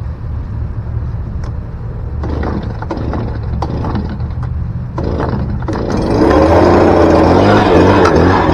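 Gas leaf blower being pull-started: a few tugs on the recoil starter, then the engine catches about six seconds in and keeps running loudly.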